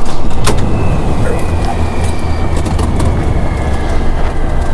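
Antonov An-26 turboprop engines running: a deep steady drone with a faint high whine that slowly falls in pitch, and a few sharp clicks.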